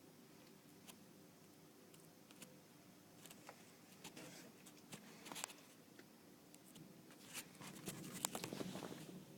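Near silence with faint scattered rustles and small clicks, in two short clusters midway and near the end.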